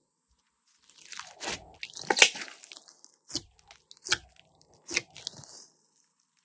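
Slime being squeezed and kneaded by hand, making a run of sharp crunchy pops and clicks with crackling between them, starting about a second in.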